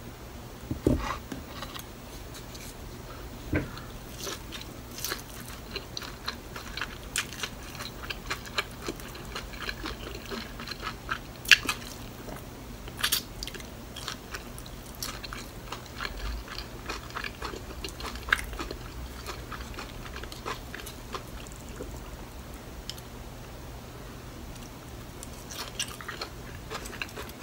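Close-up eating sounds of a kimchi pancake being bitten and chewed, with many short clicks and a few sharper ones scattered through.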